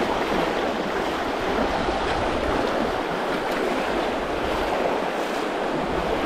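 Shallow river rapids rushing over rocks: a loud, steady rush of fast-flowing water.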